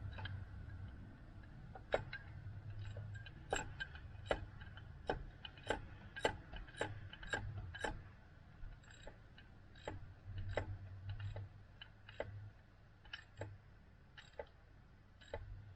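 Hand ratchet wrench clicking as it turns the thermostat housing bolts on a 5.7 Hemi. Sharp single clicks come about two a second through the middle, then more sparsely.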